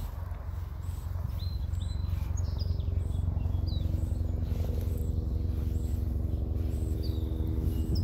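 Helicopter rotor beat and engine drone, growing gradually louder as it approaches. Small birds chirp now and then over it.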